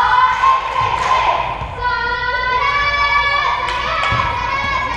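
Children's high-pitched voices calling and shouting, with a few dull thuds of a ball bouncing.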